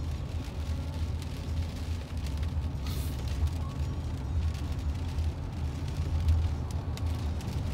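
Steady low rumble of road and wind noise inside a car cabin, driving through a heavy rain and wind storm, with a brief hiss about three seconds in.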